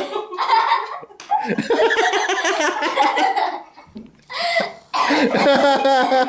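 Young girls laughing hard, in three long fits broken by short pauses.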